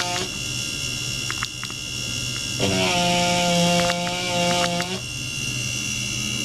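Electronic whine and hum from an ultrasonic vibration test rig, a transducer driving a water-filled plastic tank: steady high-pitched tones throughout, joined by a lower chord of hum tones that cuts in a little under three seconds in and stops about two seconds later.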